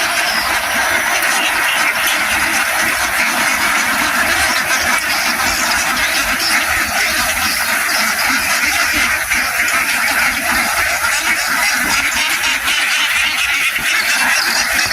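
A large flock of domestic ducks quacking together in a dense, continuous chorus.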